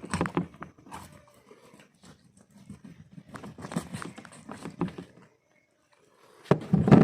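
A knife cutting open a whole fish on a board: irregular scraping and knocking as the blade works through flesh and bone, with a loud cluster of knocks near the end.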